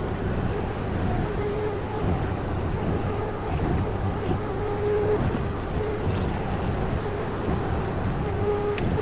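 Honda gas engine of a Derette DRT450 mini skid steer running steadily while pushing dirt, with a short, higher whine that comes and goes several times.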